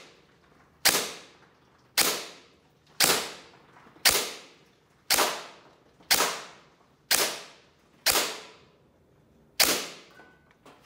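Gel blaster with a DSG gearbox and M170 spring firing on semi-auto, nine single shots about a second apart, each a sharp crack with a short fading tail. It is being fired through a chronograph to measure FPS.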